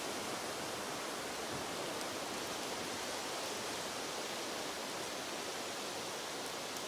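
Steady, even hiss of wind blowing through the woods.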